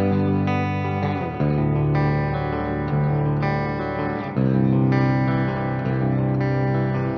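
Ibanez Axion Label RGD71ALMS seven-string electric guitar on its Fishman Fluence Modern ceramic bridge pickup, outer-coil setting, played direct through an amp simulator. Chords are left to ring, with a new chord struck about a second in and again about four seconds in.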